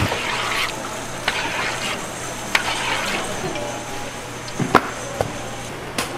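A few sharp clicks and knocks over a low steady hum, the loudest just before five seconds in.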